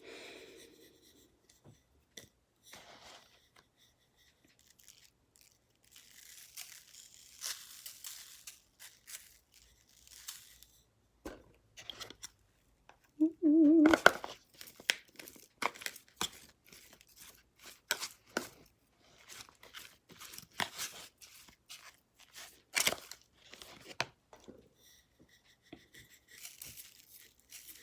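Sugar being added to a bowl of peeled grapefruit segments: rustling and pouring hiss with many small clicks and taps. There is a louder burst about halfway through.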